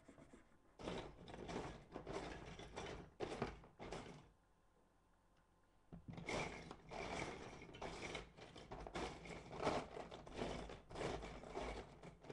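Plastic Lego bricks being handled and pressed onto a model, clicking, rattling and scraping against a wooden table in two stretches of clatter with a short pause between.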